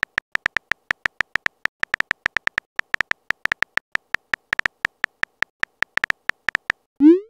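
Phone keyboard keypress sound effect: a fast, uneven run of short high ticks, one per letter typed. The ticks stop just before the end, and a short loud rising swoop follows as the message is sent.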